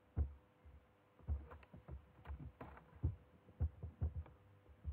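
About a dozen faint, irregular dull thuds and clicks of a computer mouse and keys being worked on a desk.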